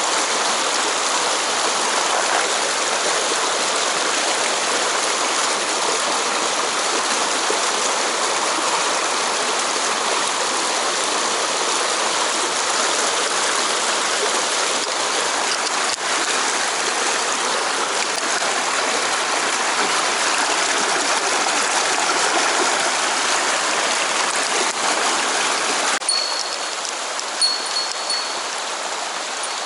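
Mountain stream water flowing steadily, a loud, even rush. About 26 seconds in, the water sound drops to a thinner, quieter rush, and a few brief high ringing tones follow.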